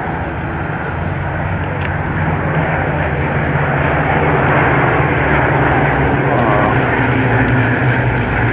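A Bristol Blenheim and three Hawker Hurricanes pass overhead in formation, their piston engines droning steadily: the Blenheim's two Bristol Mercury radials and the Hurricanes' Rolls-Royce Merlin V12s. The drone grows louder over the first few seconds as the formation comes overhead, then holds.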